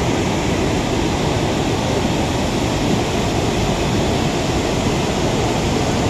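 Bharachukki waterfall on the Kaveri river in heavy flow: a steady, loud rush of falling water, strongest in the low range.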